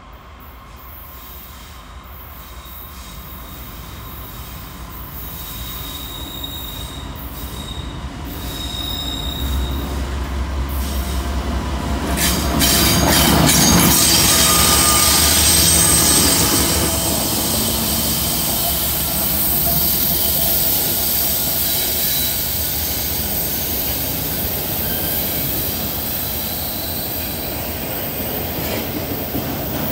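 Freight train rolling down a steep curved grade. Its diesel locomotives approach and pass close by, loudest about halfway through, then autorack cars roll past with steel wheels squealing on the curve as thin high tones.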